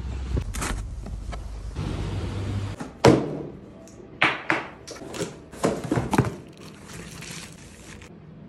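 Low street rumble at first, then a sharp knock about three seconds in, followed by a cardboard shipping box being slit open with a box cutter and its flaps pulled apart: a quick run of short scraping and tearing noises.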